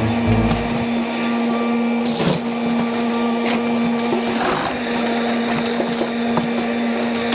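Kobelco SK75SRD excavator running under work, its engine and hydraulics giving a steady even hum, with a few short knocks about two, three and a half, and four and a half seconds in.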